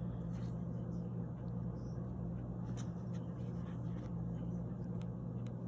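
A steady low background hum, with a few faint, light clicks of small plastic figures and packaging being handled.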